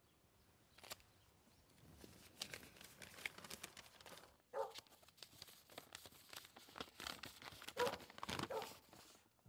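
Faint paper crinkling and rustling as a sheet of paper is handled and opened, with crackly clicks throughout. Two short pitched sounds stand out, one about halfway and one near the end.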